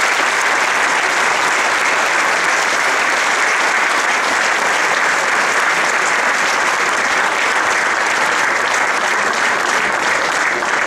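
Crowd of spectators and players applauding outdoors, steady and sustained clapping at the end of a speech.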